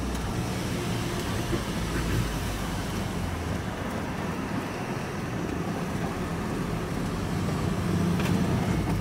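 Vehicle engine and tyre noise heard from inside the cab while driving: a low, steady hum that grows a little louder near the end.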